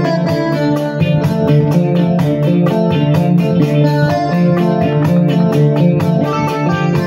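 Electronic keyboard playing an up-tempo instrumental with a quick, even beat and full chords.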